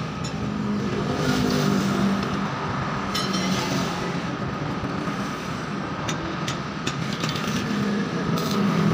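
Steady mechanical rumble, with a few light metallic clicks and taps from small steel parts being handled.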